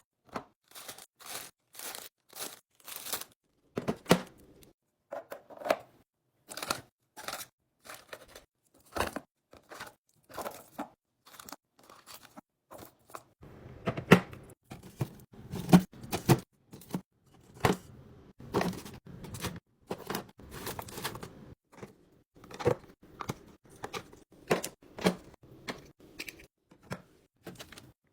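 Snack packaging being handled during a fridge restock: crinkling plastic wrappers, tearing, and light knocks and clicks as items are set down, coming in quick irregular bursts. Heavier knocks run through the middle stretch.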